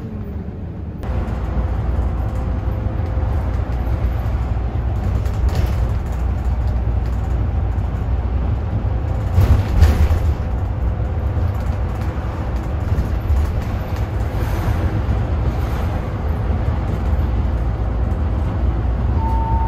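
Cabin noise inside a city route bus on the move: a steady low engine and road rumble, with a louder bump or jolt about halfway through.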